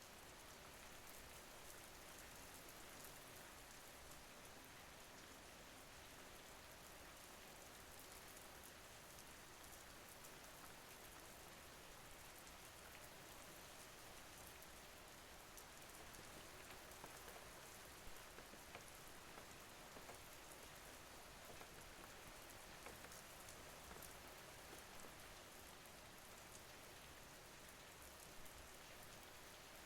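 Faint, steady rain falling, with scattered individual drop ticks.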